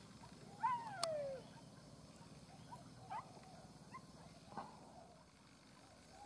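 A dog's single drawn-out whine, falling in pitch, about a second in, followed by a few short faint chirps.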